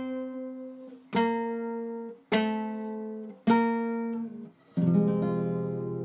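Acoustic guitar music: single strummed chords about once a second, each stopped short before the next, then a fuller chord left ringing near the end.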